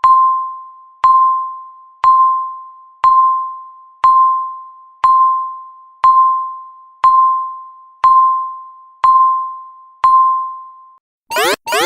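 Countdown timer sound effect: a single-pitched electronic ding once a second, each one fading away, marking the final seconds of a countdown. Near the end the dings stop and a loud pulsing alarm starts, each pulse a quick rising sweep, about two to three a second, signalling that time is up.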